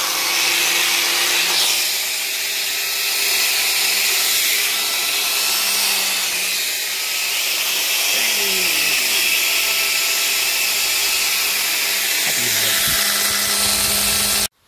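Electric grinder running steadily with a loud hiss of abrasion against metal over its motor hum. The hum drops in pitch twice as it is loaded, and the sound stops abruptly near the end.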